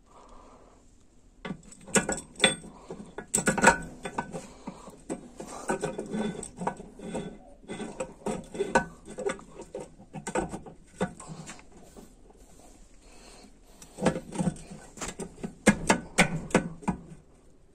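Irregular clicks, clinks and knocks of transmission parts and hand tools being handled and set down on a workbench, coming in uneven clusters.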